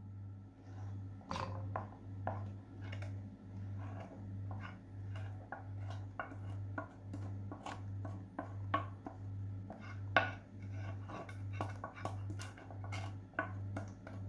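A spoon stirring and scraping thick chocolate caramel sauce in a plastic mesh sieve, with scattered light clicks and taps against the sieve. Under it runs a low hum that pulses evenly, about one and a half times a second.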